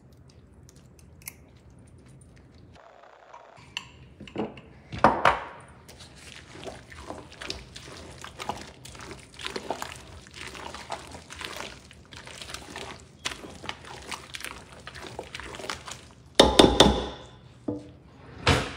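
A spoon stirring a thick, mayonnaise-dressed pasta salad in a large stainless steel bowl: wet squishing and scraping against the metal, starting about four seconds in. A few loud knocks come from the spoon and bowl, the loudest near the end.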